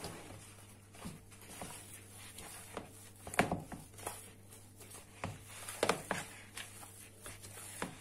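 Soft yeast dough being kneaded by hand in a plastic bowl: irregular soft slaps and squishes as the dough is pressed and folded, over a faint steady hum.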